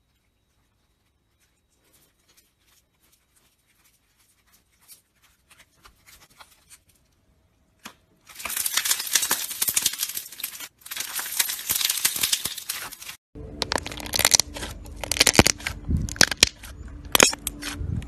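Hands stretching and squeezing slime: sparse faint clicks at first, then dense crackling and popping from about eight seconds in. From about thirteen seconds a second slime is pressed under the hands, giving louder pops and clicks over a low steady hum.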